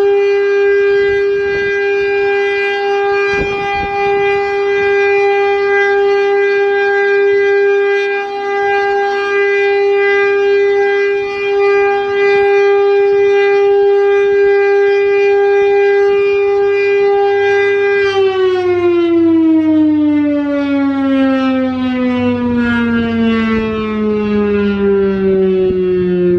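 Federal Signal STL-10 outdoor warning siren sounding the steady Full Alert tone, loud and rich in overtones. About two-thirds of the way through, the tone starts to fall steadily in pitch as the siren winds down at the end of the test.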